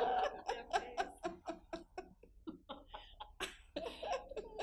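People laughing in a room: a run of short, quick laughing pulses, about four or five a second.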